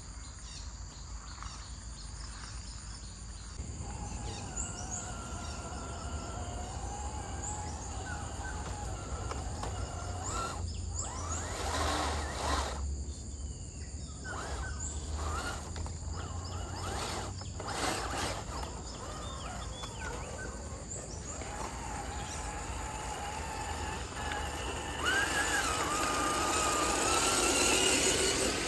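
Outdoor ambience with birds chirping now and then. About 25 seconds in, a louder, steady hiss comes in.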